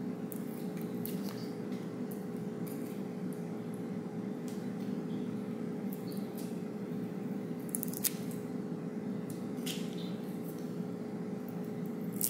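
Scattered faint clicks and crackles of adhesive foam dots being peeled from their backing sheet and pressed together into stacks, the sharpest about eight seconds in, over a steady background hum.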